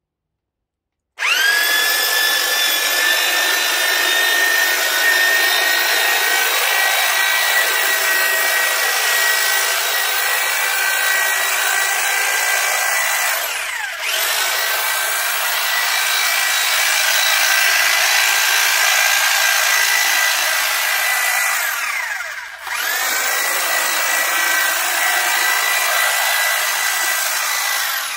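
Titan corded electric long-reach hedge trimmer switching on about a second in and running with a steady high whine as its blades cut into a hedge. Twice, about halfway and again near the end, the motor briefly slows and picks back up.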